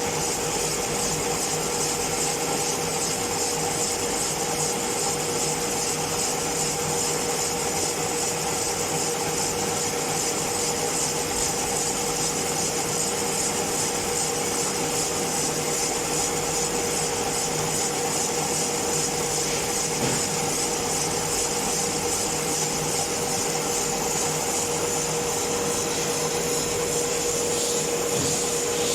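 Metal lathe running and cutting a metal casting: a steady scraping hiss from the cutting tool over a constant hum from the machine.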